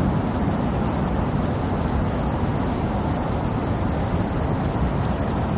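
Muddy floodwater rushing in a violent torrent: a steady, unbroken rushing noise, heaviest in the low range.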